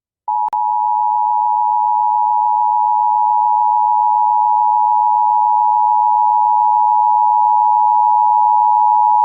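Emergency Alert System attention signal: two steady tones sounded together as one harsh buzz, held unbroken for about nine seconds and then cut off sharply. There is a brief click and dropout about half a second in.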